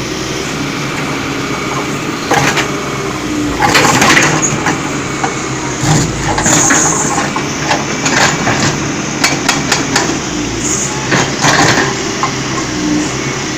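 Irregular knocks and clanks of hard strikes on stone and metal from road-widening work, over the steady hum of a running engine.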